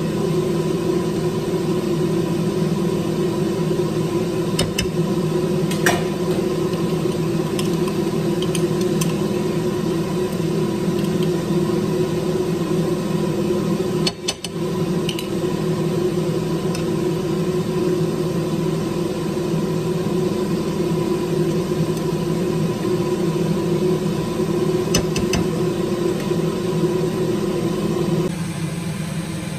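A steady motor hum, with a few light clicks of a spatula against a frying pan; the hum drops a little near the end.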